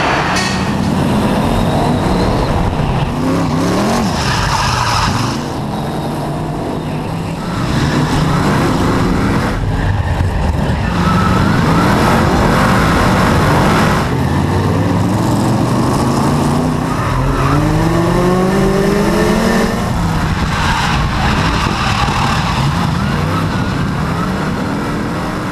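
BriSCA F1 stock car's V8 engine revving hard, its pitch rising and falling again and again as the throttle is opened and lifted through the bends.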